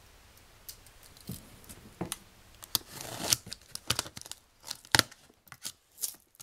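A knife slitting the packing tape on a small cardboard box, then the cardboard flaps being pulled open: a run of sharp clicks and scrapes, with a longer tearing rasp about three seconds in.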